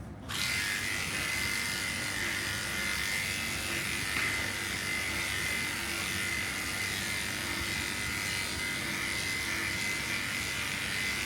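Electric pet grooming clippers switched on just after the start and running steadily with an even, high-pitched hum.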